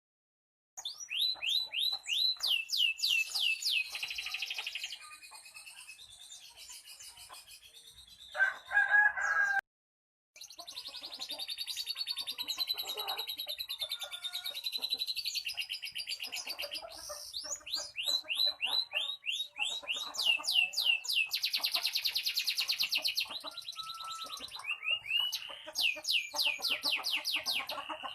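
Domestic canary singing loud and persistently: rapid series of rising whistled sweeps, fast trills and buzzy rolls. The song is broken by a short silent gap about ten seconds in, just after a brief, louder, lower-pitched call.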